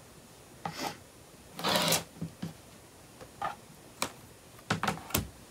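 Clear acrylic ruler shifted and pressed on a cutting mat, and a rotary cutter run along it through the tea towel fabric. Short scrapes and clicks, with one longer rasping scrape about a second and a half in.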